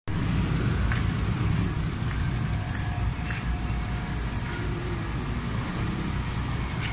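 Road traffic noise: a steady low rumble of motor vehicles with a broad noisy hiss over it.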